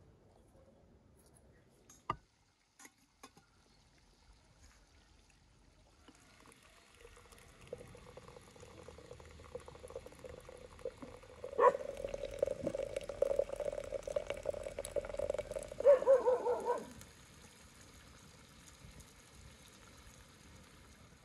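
Hot water running from a samovar's tap into a glass teapot. It starts faint, grows louder after a click about halfway through, and rises in pitch as the pot fills before stopping abruptly.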